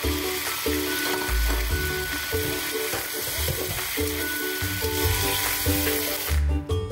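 Boiled chicken feet and garlic sizzling in hot oil in a wok as they are stirred with a metal spatula, under background music. The sizzling cuts off suddenly near the end.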